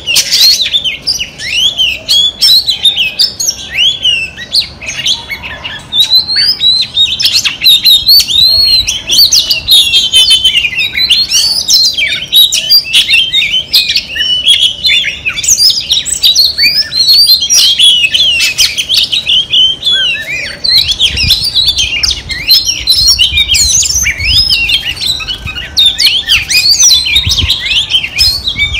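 Female oriental magpie-robin singing without a break: a fast, loud, varied run of whistles, chirps and trills, the notes sliding up and down.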